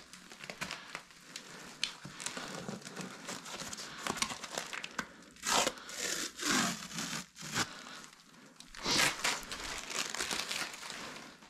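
Plastic packing material, bubble wrap and foam sheet, being handled and crumpled by hand: continuous crinkling and rustling, with louder bursts about halfway through and again about three-quarters of the way in.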